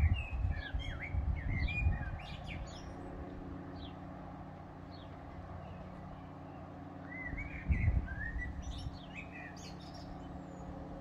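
Small birds chirping and twittering in short bursts of high notes, heard in two spells, over a steady low hum with a few brief low rumbles.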